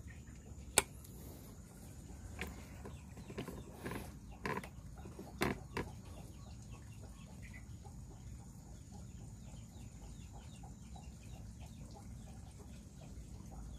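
Chickens clucking in the background, with one sharp click about a second in and a few softer knocks over the next five seconds, from the PCP air rifle being handled between shots.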